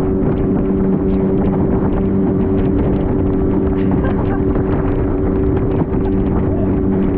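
Motorboat engine running steadily at speed with an unchanging pitch, mixed with rushing water spray and frequent small knocks of waves hitting the aluminium hull, and wind on the microphone.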